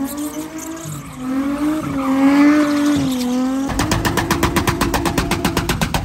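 A car engine revving hard during donuts on pavement, its pitch rising and falling as the car slides. About two-thirds of the way through it holds at high revs with a rapid, even stutter of about nine pulses a second, typical of an engine bouncing off its rev limiter.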